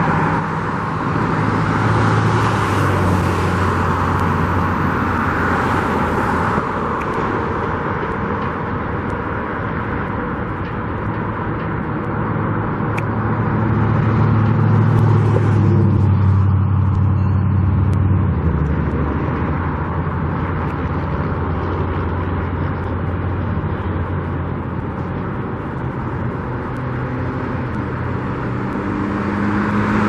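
Road traffic running in a steady stream of cars and trucks, with engine hum and tyre noise swelling as vehicles pass, loudest a few seconds in and again about halfway through.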